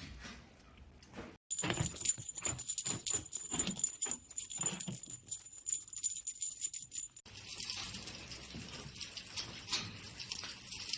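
Small bells jingling in quick, irregular shakes, with sharp cuts where the sound changes abruptly about one and a half seconds in and again past the middle.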